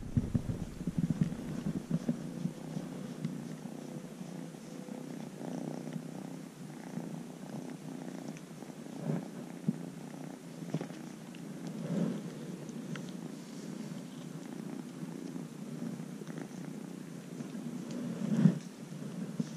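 Ginger-and-white kitten purring steadily close to the microphone, with occasional soft rustles and bumps.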